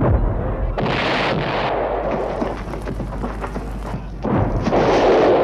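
Cannon bombardment sound effects: a dense run of cannon shots and exploding shells with crashing debris, easing a little midway and building up again near the end.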